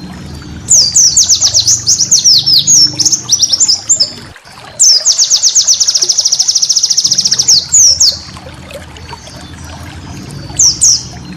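White-eye (pleci) singing in rapid bursts of high, downward-sweeping chirps. About five seconds in, the song turns into a fast, even trill lasting about two seconds. A low steady rumble runs underneath.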